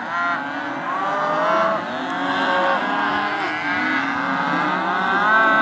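A herd of Hereford calves at weaning bawling, many calls overlapping, with one long loud bawl starting near the end.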